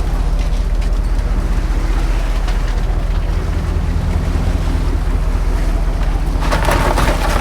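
Boat engine running steadily, with wind rushing over the microphone; a louder burst of rushing noise comes near the end.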